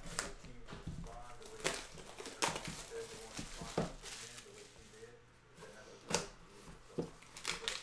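A cardboard trading-card box being handled and torn open by hand. Its board gives a series of sharp scrapes, taps and tearing crackles, about seven strokes spread unevenly across a few seconds.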